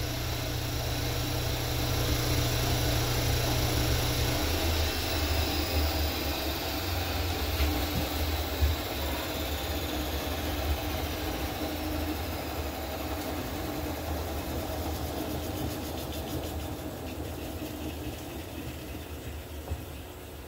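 A workshop machine's electric motor coasting down after being switched off: a steady running hum whose high whine slowly falls in pitch while the whole sound gradually fades.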